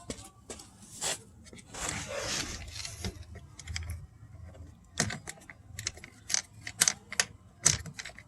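Sharp plastic clicks and small rattles from car interior door trim and handle parts being worked by hand, with a longer rustling scrape about two seconds in.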